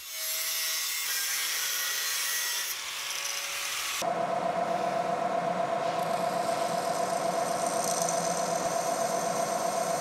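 An angle grinder cuts through a flat steel bar for about four seconds, a steady high hiss. It is then replaced abruptly by a drill press boring a hole through the steel crank arm, a steady whine with a fast flutter.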